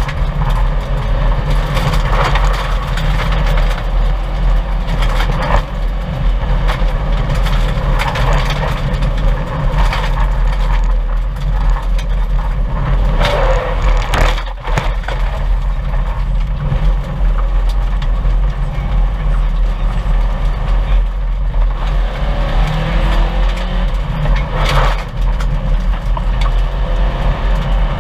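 1998 Subaru 2.5 RS rally car driven hard on a gravel stage: its flat-four engine runs loud and steady while stones and gravel crack and knock against the car, in scattered sharp hits every couple of seconds.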